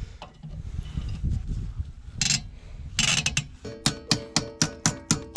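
Rubbing and handling noise with two short scrapes, then a ratchet wrench clicking steadily, about four to five clicks a second, each click ringing with a metallic tone.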